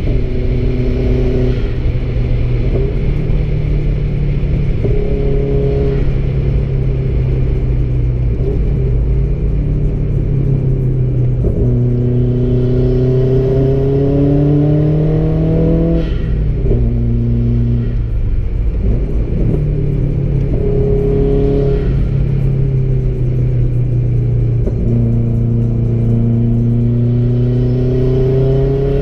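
Car engine heard from inside the car, accelerating through the gears: its pitch climbs steadily, then drops back at each gear change, several times, over steady road and wind noise.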